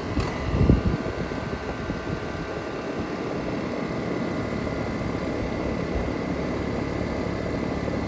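Newly installed Ruud 2.5-ton air-conditioner condensing unit running just after start-up, its compressor and condenser fan giving a steady hum with faint steady tones while the refrigerant pressures settle. A brief low thump about half a second in.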